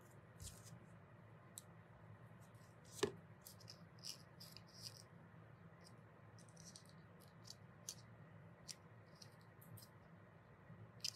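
Faint crinkles and ticks of small paper petals being pinched and pressed together by fingers, over a low steady hum, with one sharper click about three seconds in.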